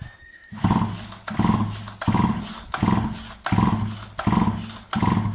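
Stihl MS 230 chainsaw's recoil starter being pulled over and over, about seven quick pulls, the engine cranking without firing. It is being cranked for an ignition spark test, which shows a weak, intermittent spark from a faulty ignition coil.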